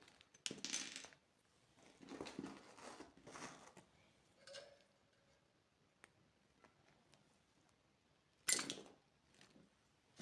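Candy packaging being handled and unwrapped: several short bursts of crinkling and rustling with small clicks, the sharpest one near the end.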